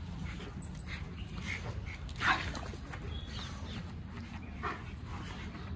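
A pack of dogs at rough play, giving a few short barks and yelps. The loudest comes about two seconds in and another shortly before the end, over a steady low rumble.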